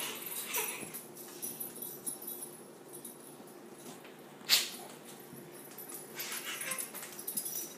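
Faint dog sounds from a pit bull, with one sharp knock about four and a half seconds in.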